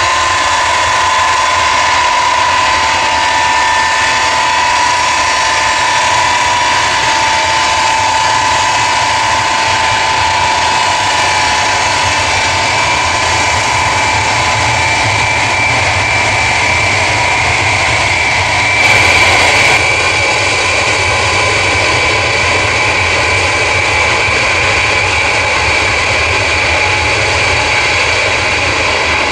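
Ilyushin IL-62's four rear-mounted jet engines running at taxi power: a loud, steady whine over a rushing roar. A tone near 1 kHz sinks slightly at first, then a higher whine near 2 kHz comes to the front, with a brief louder rush about two-thirds of the way in.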